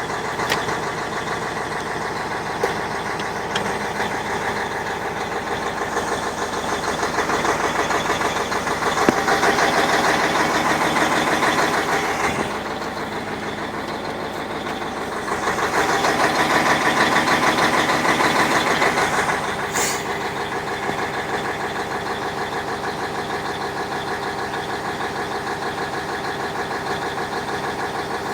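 YaMZ 6581.10 truck diesel engine running with a steady, even beat. Its revs rise twice for several seconds and drop back to idle. The owner is listening for a knock he cannot identify.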